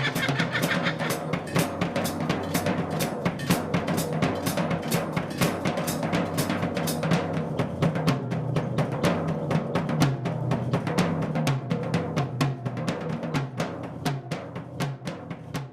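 Drumming: a fast, even run of drum strokes, about four or five a second, fading out near the end.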